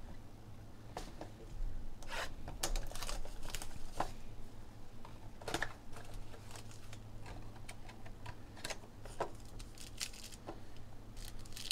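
Hands handling a trading-card box and tearing open a foil card pack: scattered clicks and short crinkles of cardboard and wrapper, crinkling densest near the end as the wrapper is torn.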